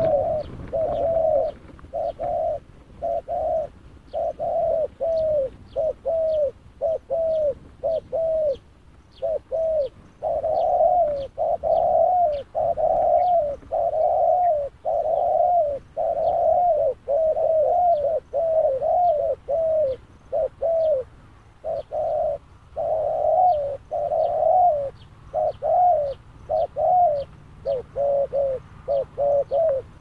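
Spotted doves cooing over and over in quick runs of short coos with only brief gaps. Faint high chirps repeat steadily behind them.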